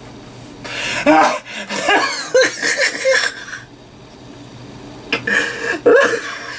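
A man laughing hard in two fits, one about a second in and another about five seconds in, stifled behind his hand.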